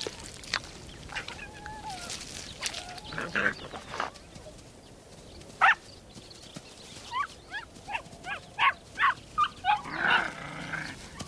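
Ethiopian wolf pups whining and squealing as they mob returning adults, begging them to regurgitate food. Short high squeals come scattered, then a quick run of them near the end.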